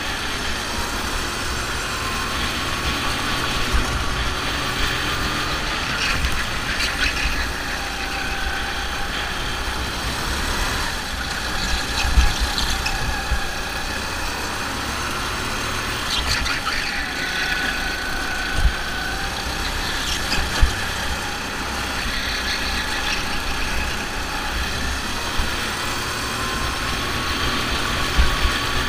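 Go-kart engine running at racing speed, its pitch rising and falling as the kart accelerates and slows through the corners, with a few sharp thumps along the way.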